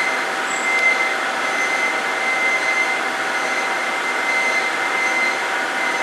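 A machine runs with a steady whir, and a thin, high, steady whine runs through it.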